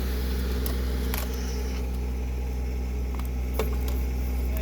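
TYM 264 compact tractor's diesel engine running steadily, with a few short knocks over it.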